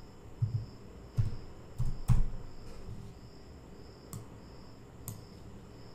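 Computer keyboard keystrokes and mouse clicks: a handful of separate taps, four within the first two seconds and two more near the end, over a faint, high, pulsing whine.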